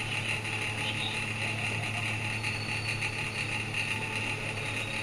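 Steady low hum with an even hiss underneath, unchanging throughout, with no distinct knocks or clicks.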